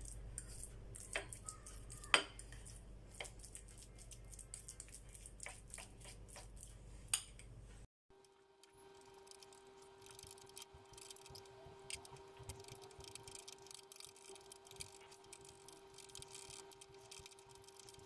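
A fork clinking and scraping against a dish as the remedy's ingredients are mixed, with a sharp tap every second or so. After a brief cut about eight seconds in, a faint steady hum with many light ticks.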